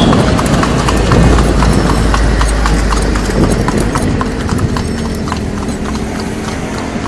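Hooves of a pair of cart horses pulling a tomtom clip-clopping on a paved street in a quick, even rhythm, over a steady low rumble.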